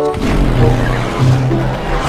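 Film soundtrack: music mixed with a motorcycle engine running hard, and tyres skidding.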